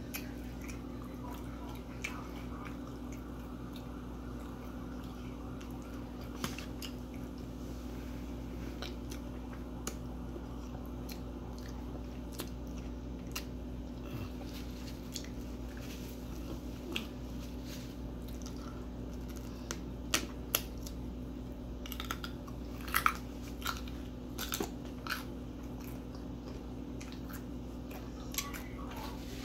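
A person chewing food close to the microphone, with scattered sharp clicks that bunch together and get loudest about two-thirds of the way through. A steady low hum runs underneath.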